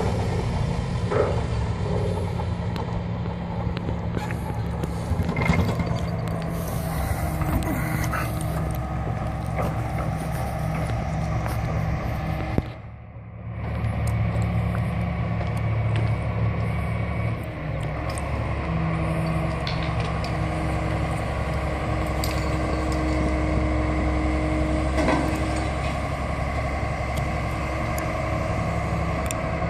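Excavator diesel engines running steadily, with a hydraulic whine now and then and occasional metallic knocks. The sound drops off briefly about 13 seconds in.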